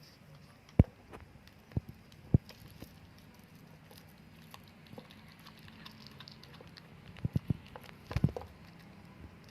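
Cat eating, with scattered sharp clicks and crunches of chewing: a few in the first couple of seconds, then a quick cluster in the second half.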